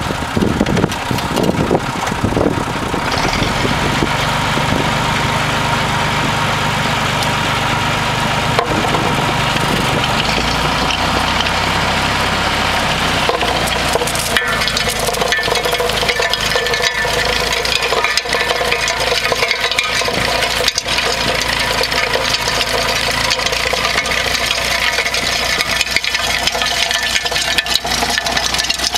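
Massey Ferguson 135 tractor engine running steadily while driving a Ferguson potato spinner through the soil.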